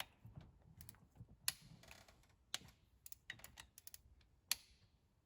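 Scattered sharp metallic clicks and taps of a wrench on the engine's injector hold-down bolts as they are turned a further 90 degrees. There are three louder clicks and a cluster of lighter ticks in between.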